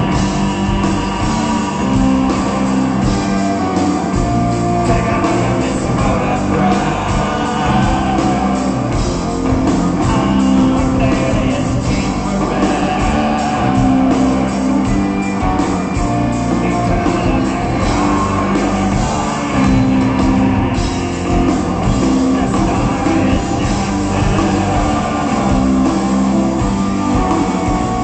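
Live rock band playing with electric guitars, drums and a singer's voice, heard from the audience in a concert hall.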